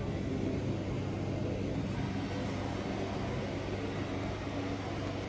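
Steady low hum with a hiss over it, the even machinery drone of an aquarium hall around its big display tank.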